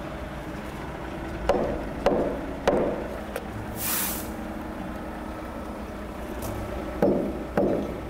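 Hammer blows on wood: three knocks about half a second apart, a short hiss, then two more knocks near the end, over a steady low hum.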